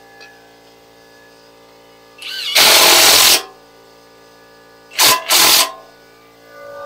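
Impact wrench tightening suspension bolts: one loud burst of about a second that spins up with a rising whine and hammers, then two quick short bursts about five seconds in.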